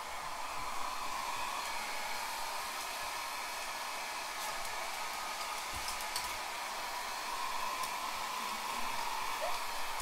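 Handheld hair dryer running steadily: an even rush of blown air with a faint motor whine.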